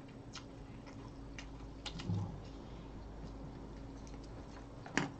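Close-miked eating sounds: a person chewing food, with small wet mouth clicks and lip smacks about once a second and a sharper click near the end. A faint steady hum runs underneath.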